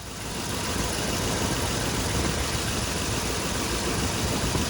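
Ford 4.6 L V8 engine coming up to a steady idle, running with a misfire: one cylinder is not firing.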